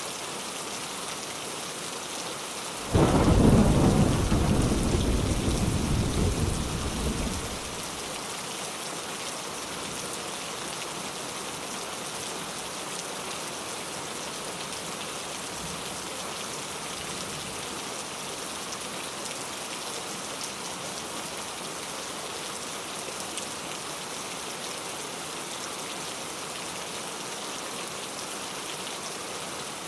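Steady rain, with a sudden clap of thunder about three seconds in that rumbles for a few seconds and fades away.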